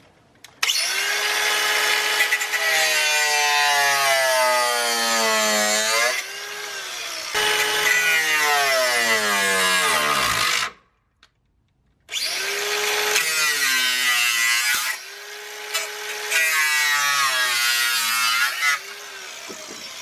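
Angle grinder cutting into the steel of the bonnet-latch panel, its whine dropping in pitch as the disc bites. About ten seconds in it winds down and stops for a second, then starts up and cuts again.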